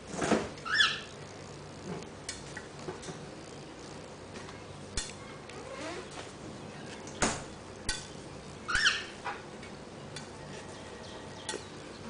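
Cockatiel bathing on a ceramic plate: water splashing and wet wings flapping, with scattered knocks and clicks on the plate. Two short cockatiel chirps, one near the start and one about three-quarters through.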